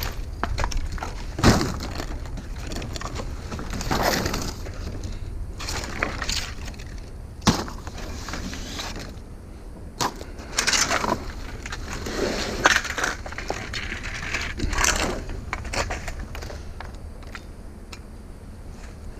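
Metal scrap being handled and taken apart by hand: clinks, scraping and rattling of parts, with a few sharp knocks.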